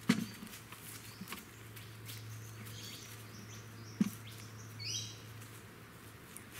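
Birds chirping in the bush, with two sharp knocks, one right at the start and one about four seconds in, and scattered small clicks.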